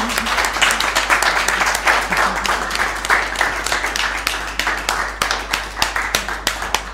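Applause from a small room of people clapping hands, dense at first and thinning in the last couple of seconds into fewer, separate claps.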